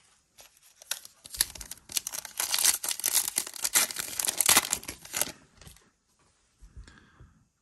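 Plastic wrapper of a Donruss football card pack crinkling and tearing open by hand: a dense crackling lasting about four seconds, starting a little over a second in. Near the end come a few faint sounds of the cards being handled.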